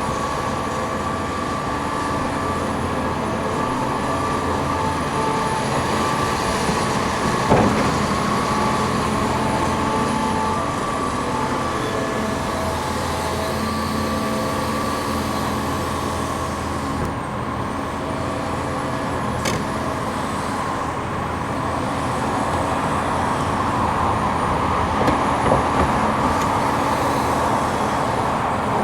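Heavy diesel construction machinery, the excavators at work, running steadily. A single sharp metallic clank comes about seven and a half seconds in.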